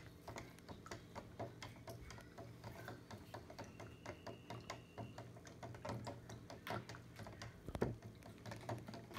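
Plastic spoon stirring salt water in a clear plastic cup, ticking irregularly several times a second as it knocks the sides and bottom while the salt dissolves.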